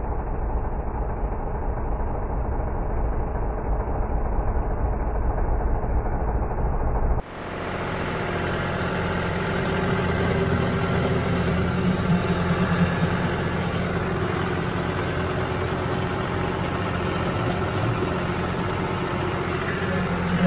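John Deere diesel tractor engine running steadily. For the first seven seconds it is a heavy, low rumble. Then it changes abruptly to a clearer, steady engine drone heard from the driver's seat as the tractor moves along the trail.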